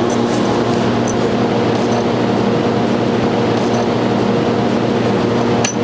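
Steady machine hum with hiss, like a fan or motor running, holding an even pitch with several low tones over it; a short sharp click near the end.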